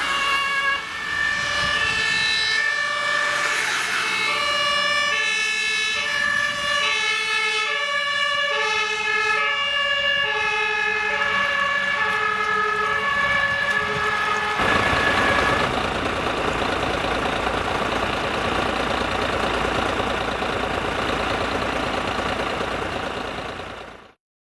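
Fire engines' two-tone sirens (German Martinshorn), at least two sounding out of step with each other, each alternating between a lower and a higher note about every two-thirds of a second. About fifteen seconds in, the sirens stop and a dense, even rushing noise takes over, cutting off abruptly just before the end.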